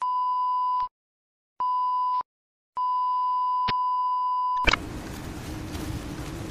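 Three electronic beeps at one steady pitch: two short ones, then a longer one of about two seconds that ends in a click. A steady noisy background with a low hum follows.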